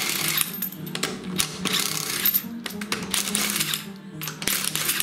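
Cordless impact wrench hammering on a car wheel's lug bolt in three bursts, the first about two and a half seconds long, then two shorter ones near the end.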